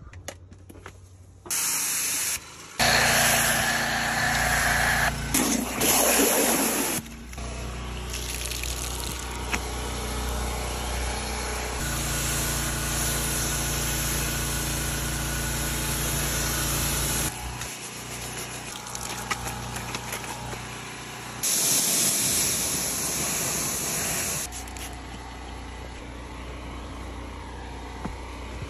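Pressure washer running with a steady motor hum, with several spells of hissing water spray over a car wash; the sound changes abruptly several times as short clips are cut together.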